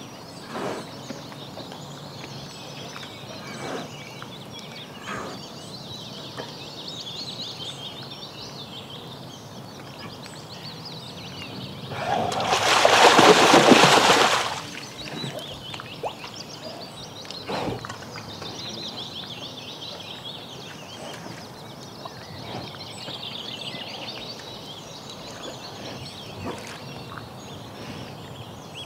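Brown bear sloshing and splashing as it bathes in shallow water, with scattered small splashes and one loud burst of splashing lasting about two seconds midway. Birds sing in the background.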